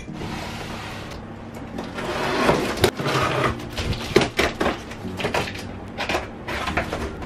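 Hands opening a taped cardboard box: tape being torn and peeled with scraping on the cardboard, and several light knocks on the box.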